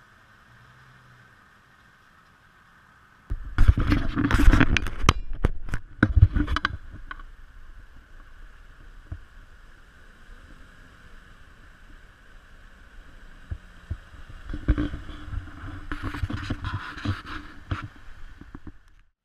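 Off-road SUV engine revving hard as it drives through deep mud, with mud and water splashing and knocks, in two loud stretches starting about three seconds in and about fifteen seconds in; a fainter steady engine drone between them.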